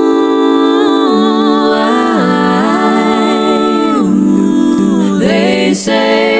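Layered a cappella vocal harmonies from one female voice built up by live looping: wordless sustained chords that move together to a new chord every second or so.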